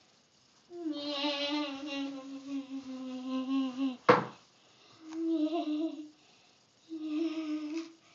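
A boy humming: one long held note lasting about three seconds, then two shorter notes. A sharp click about four seconds in is the loudest sound.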